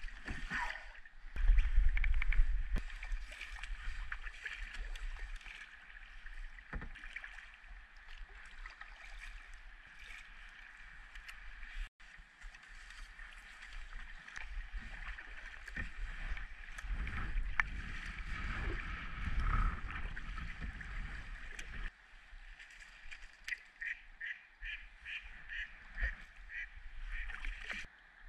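Kayak paddle strokes and water splashing and lapping against a plastic kayak hull, with wind rumbling on the microphone at times.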